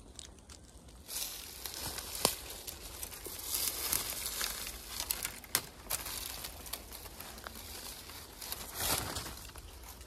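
Dry grass, dead stalks and brittle twigs rustling and crackling under bare feet as someone pushes through dry brush, starting about a second in, with a few sharp snaps of breaking twigs.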